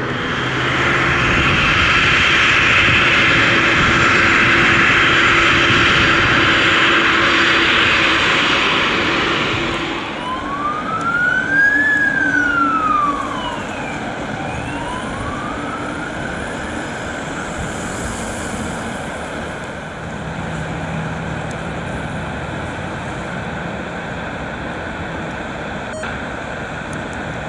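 Jet airliner engines running loudly with a steady whine for about the first ten seconds. Then a fire engine siren wails, rising and falling slowly. In the last part a quieter, low, steady drone of a Saab 340A turboprop on approach.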